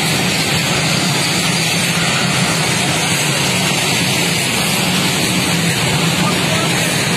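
Indian Railways covered freight wagons rolling past close by: a steady, loud rumble of steel wheels on rail with no pauses.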